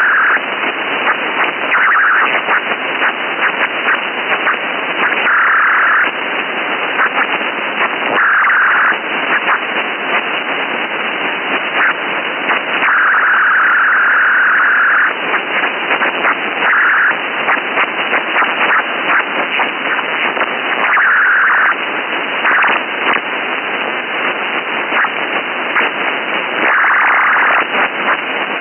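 Sci-fi radio static: continuous crackling hiss with a thin, radio-like sound, broken every few seconds by louder stretches of hiss that last from half a second to about two seconds.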